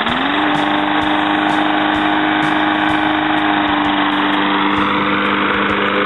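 Lawn-Boy four-stroke push mower engine, just started, coming up to speed in the first half second and then running at a steady pitch.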